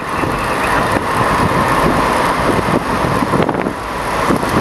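Steady road and wind noise of a car driving along, heard from inside the cabin.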